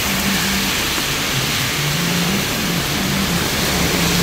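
Traffic in heavy rain on a wet street: a steady hiss of rain and tyres on wet road, under a vehicle engine's hum that rises and falls in pitch.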